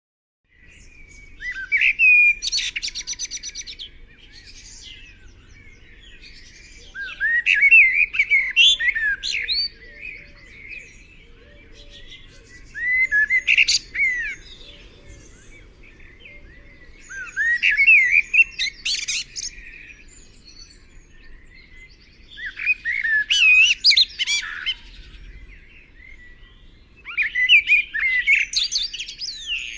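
A songbird singing: six rapid, warbling phrases of about two seconds each, repeated at roughly five-second intervals with short pauses between.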